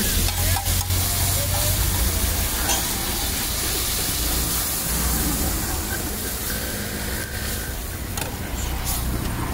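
Masala gravy and buttered pav sizzling on a large flat iron griddle (tawa), with a few sharp taps and scrapes of a metal spatula on the plate. A low rumble of road traffic runs underneath.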